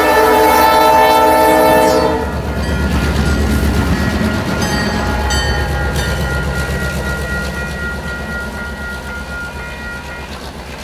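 Locomotive air horn sounding a loud multi-note chord that cuts off about two seconds in. Then the low rumble of the GMRC X106 snow plow train plowing past close by, with a few clicks, fading as it moves away.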